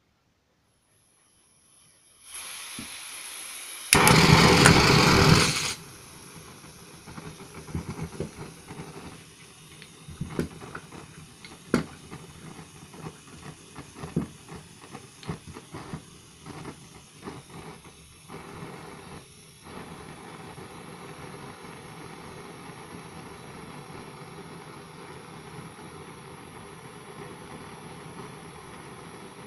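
Gas blowtorch on a cartridge: the gas hisses on about two seconds in, a loud rushing burst lasts under two seconds as it lights, and the flame then burns with a steady hiss. Through the middle, metal clinks and knocks as the pliers and bolt are handled.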